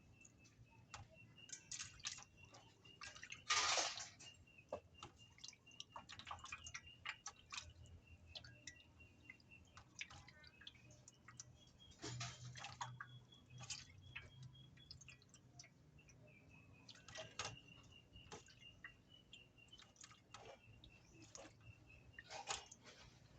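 Raw chicken meat being washed by hand in water: irregular splashes and drips, with louder splashes about three and a half seconds in and again about twelve seconds in.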